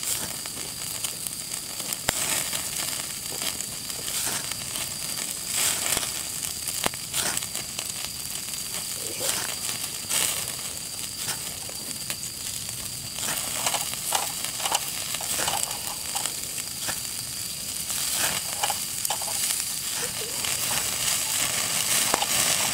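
Thick beef steak sizzling over charcoal on a small tabletop grill, with frequent sharp crackles as fat flares in the coals.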